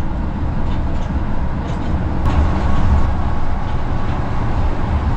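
Steady low rumble of road and engine noise from a moving vehicle in traffic, heard from inside it, alongside empty container chassis trailers.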